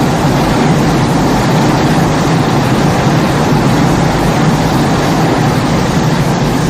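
Loud, steady rushing rumble with no clear pitch, a kaiju-style destruction sound effect.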